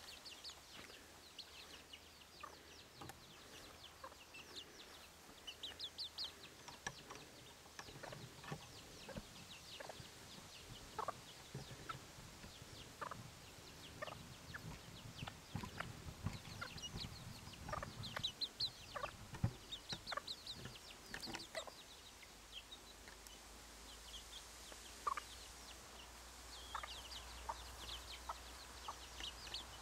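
German bush chickens, a bantam breed, clucking softly, with many short high peeps and chirps coming in quick clusters.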